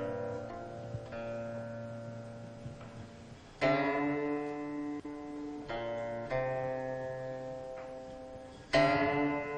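Slow music on a plucked string instrument: sustained notes and chords that ring and fade, with two loud struck chords, one about three and a half seconds in and one near the end.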